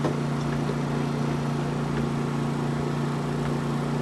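A steady, unchanging low mechanical hum from a running motor, with a few faint clicks of handling.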